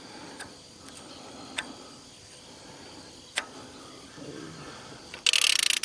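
A few faint single clicks and knocks, then near the end a loud burst of rapid ratchet clicking from a torque wrench tightening the sawmill's blade tension.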